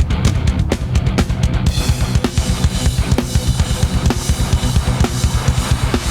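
Drum kit played fast with backing music: rapid bass drum strokes and snare hits, and a steady wash of cymbals from just under two seconds in.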